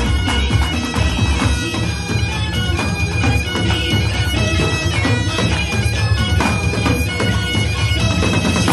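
Two sets of Great Highland bagpipes playing a tune over their steady drones, with a snare drum and tenor drums beating along.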